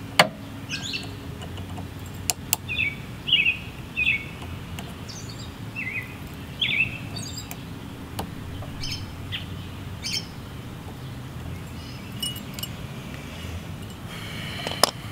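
Small birds chirping in a series of short, falling chirps, with a few sharp clicks from pliers working on a mower's fuel line, the loudest just after the start.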